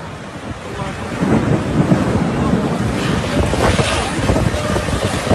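Storm wind gusting hard over a phone's microphone, the rumble swelling about a second in and staying loud.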